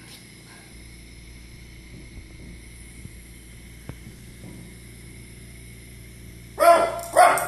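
A small curly-coated dog barks twice in quick succession near the end, after several seconds of quiet room hum.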